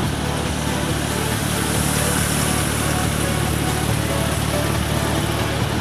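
2000 Porsche 911 Turbo's twin-turbo flat-six idling steadily, a constant low hum.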